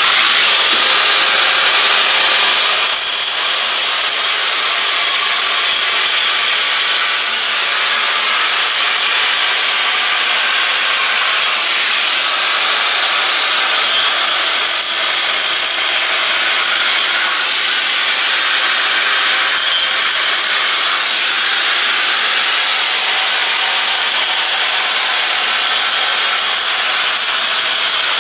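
Angle grinder running at full speed with its disc cutting into a wall along a marked circle, a steady loud grinding noise that dips slightly a couple of times as the disc is moved.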